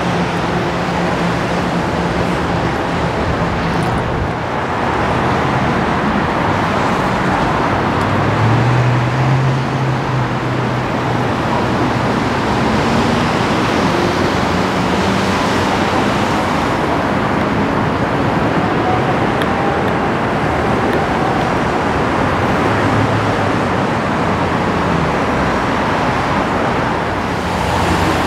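Steady city road traffic on rain-wet streets: cars passing with a continuous hiss of tyres and a low engine hum that swells and fades as vehicles go by.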